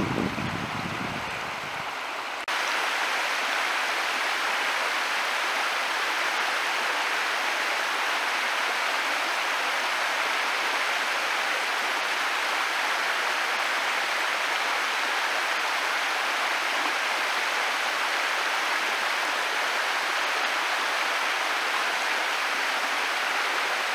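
Shallow stream running over stones, a steady rush of water. About two and a half seconds in it switches abruptly from a lower, rougher flow to a brighter, even rush that holds steady.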